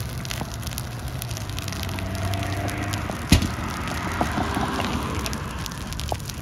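Burning car and dry roadside grass crackling, with scattered small pops over a low steady rumble. About halfway through there is a single sharp, loud pop from the fire.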